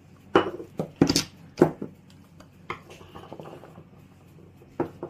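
Peeled garlic cloves and a bowl knocking on a wooden cutting board as the cloves are tipped out and handled: a quick run of sharp knocks and clatters in the first two seconds, a few light taps, then two more knocks near the end.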